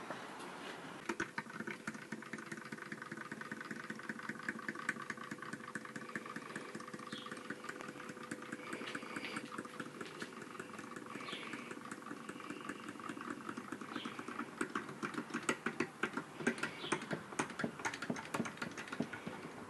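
Small mechanical toys running: a fast, continuous ticking and clicking with a faint steady whir, the clicks getting louder in the last few seconds.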